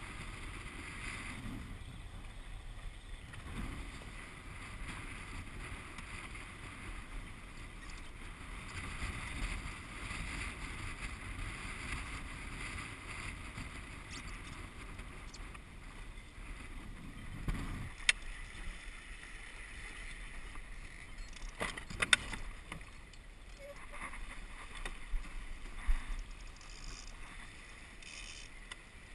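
Water hissing and splashing along the hull of a Walker Bay 10 sailing dinghy under way, with wind buffeting the microphone. A few sharp knocks sound in the second half.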